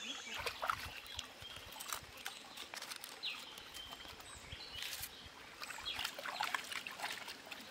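Hands splashing and water trickling in a shallow stream as duck eggs are washed, with scattered short splashes and clicks throughout.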